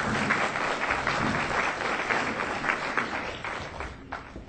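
Audience applauding, thinning out over the last second or so.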